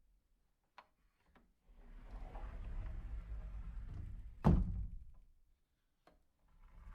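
A door shutting with one loud thud about four and a half seconds in, after a couple of faint latch clicks and a stretch of low rustling noise; another faint click follows near the end.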